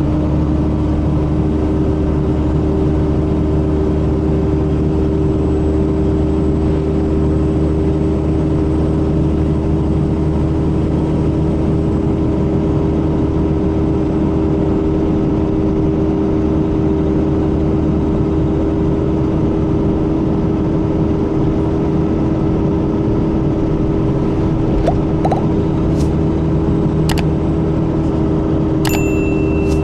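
Mercedes-Benz O500RS coach's diesel engine running with a steady, unchanging drone, a sound that is likened to the older O400RSE. A few short clicks come near the end.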